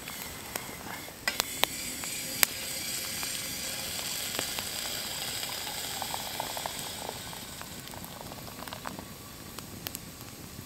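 Food sizzling in a small pan held over an open wood fire. The sizzle swells about a second in and eases off near the end, with a few sharp pops or crackles early on.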